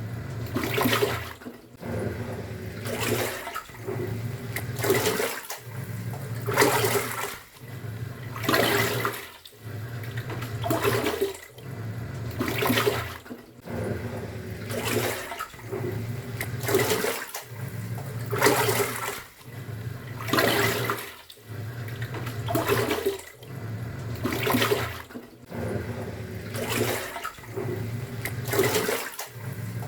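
Top-loading washing machine in its wash cycle: the pulsator motor hums while the water sloshes around the drum, the motor pausing and reversing about every two seconds.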